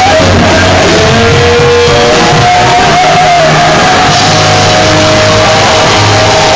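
Loud live rock music from a band with electric guitar and bass, with held notes over a heavy low end, recorded near full level.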